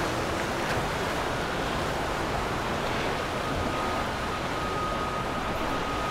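Steady rush of churned water and wind on the microphone as a motor yacht passes, its wake washing. A faint, high, steady whine comes in about halfway through.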